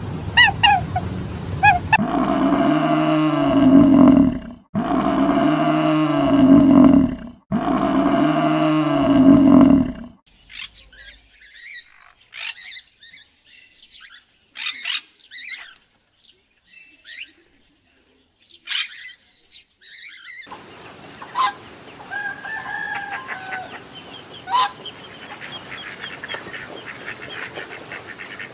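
A rooster crowing three times in a row, each crow about two and a half seconds long. After that come scattered short chirps and clicks, then a few softer bird calls over a faint steady background.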